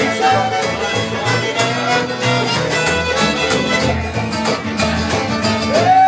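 String band playing an instrumental tune live: two fiddles over strummed acoustic guitars, with a steady rhythm.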